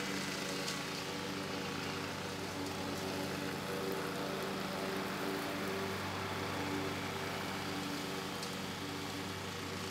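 Zero-turn riding mower's engine running steadily under load, with the hiss of the cutting deck, as it drives past.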